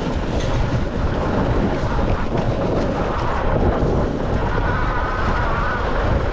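Wind buffeting the helmet or action-camera microphone in a heavy rumble, with a dirt bike engine running underneath.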